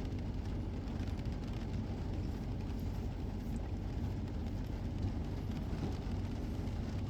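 Steady low rumble with a light hiss: rain falling during a thunderstorm, heard from behind a rain-wet window.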